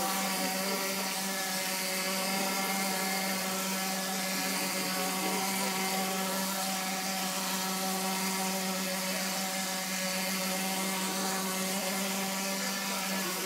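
Plaster spraying machine running steadily: a constant motor hum at one pitch under the hiss of plaster being sprayed from the hose's spray gun onto a brick wall, applying the first coat of render.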